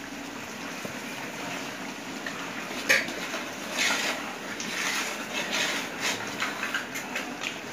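Long flat metal spatula scraping and clacking against the side of a large aluminium pot as coriander and mint are stirred into the masala gravy: one sharp clack about three seconds in, then a run of scraping strokes, over a steady low hiss.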